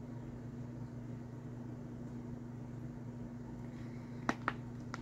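Steady low electrical hum of a microwave oven running. About four seconds in come two quick plastic clicks, then a third near the end, as the flip-top spout lid of a plastic oil dispenser is snapped shut.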